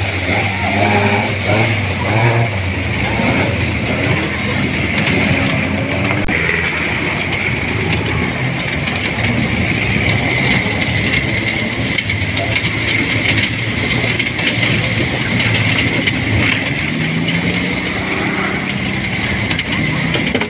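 Open-top off-road jeeps driving over rough ground, the engines running steadily under a dense rumble of road noise, with a constant high whine.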